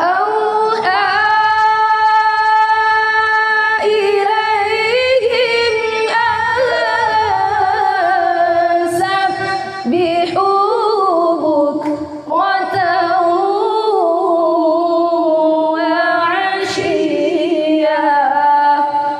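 A high voice reciting the Qur'an in melodic tilawah style, holding long notes with wavering ornaments and fading out at the end.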